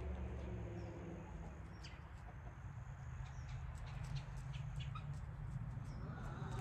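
Chickens clucking faintly over a steady low rumble, with scattered short, high calls.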